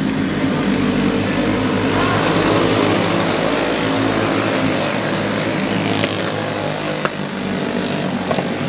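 Several small dirt-racing go-kart engines running together as a pack of karts laps the track: a continuous buzzing drone whose pitches keep wavering as the drivers work the throttle through the turn.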